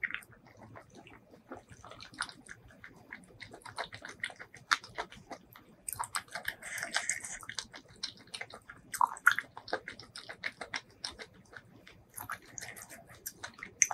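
Close-miked chewing and wet mouth sounds from eating spicy sauced seafood: a dense, irregular run of sticky clicks and squelches, with louder squelchy bursts about halfway through.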